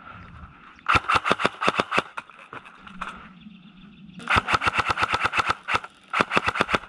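Airsoft guns firing in three rapid strings of shots, about ten a second: one about a second in, a longer one from about four seconds in, and a short one near the end.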